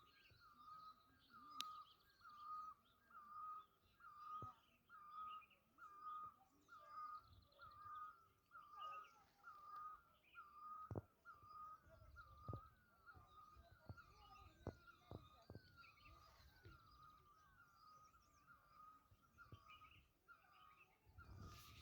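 A bird calling over and over, one short hooked note about every two-thirds of a second, with fainter chirps of other birds behind it.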